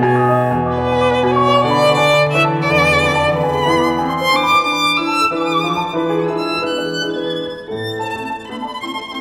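Violin and grand piano playing classical chamber music: the violin carries a melody with vibrato over the piano accompaniment, turning quieter near the end.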